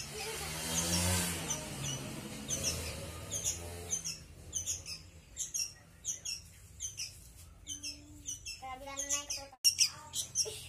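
Small birds chirping over and over in short high notes, several a second. A low hum under them fades out after about four seconds, and a sharp click comes near the end.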